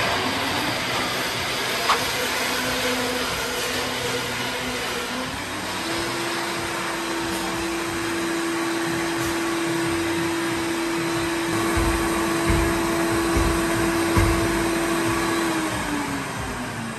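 Countertop blender running continuously. Its motor pitch steps up about five seconds in, holds steady, then falls near the end as it winds down.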